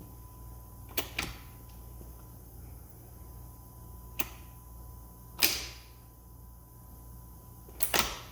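Sharp metallic clicks and clacks, some in quick pairs, as the shift forks of a Porsche PDK transmission on the bench are moved by hand between gear positions; the loudest clack comes about halfway through. A faint steady tone and low hum run underneath.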